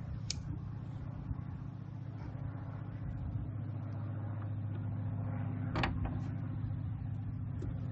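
Steady low mechanical hum with two sharp clicks, one just after the start and one about six seconds in.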